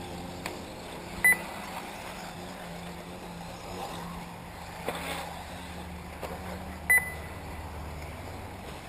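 Two short, high electronic beeps about five and a half seconds apart, over a steady low hum: an RC race lap-timing system beeping as buggies cross the timing line.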